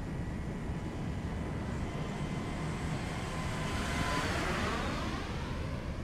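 DA-120 twin-cylinder two-stroke gas engine and propeller of a large aerobatic RC plane running, heard through the onboard camera under heavy wind rush. About four seconds in, the rushing noise swells and sweeps as the plane pulls out of a dive.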